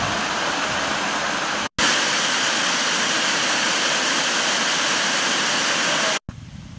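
Rushing water of a waterfall and a cascade tumbling over rocks: a steady, loud rush that cuts out for an instant about two seconds in, resumes, and stops abruptly near the end.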